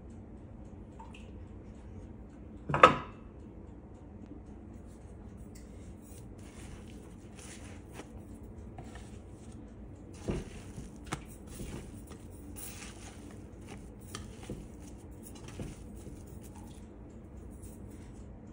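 Hands squishing and gathering a sticky, risen dough in a stainless steel bowl: soft wet squelches and scattered small knocks against the bowl. One loud clank about three seconds in.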